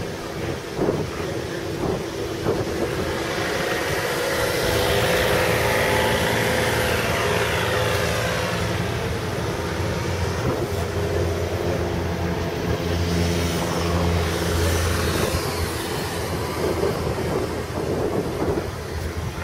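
Lenape Papoose 50 hp three-cylinder radial engine of a Piper J-3 Cub, ground-running at a steady speed and getting somewhat louder about four seconds in.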